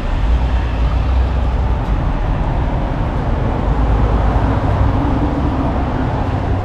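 Steady rumble of a moving vehicle: engine and road noise, heaviest in the low end.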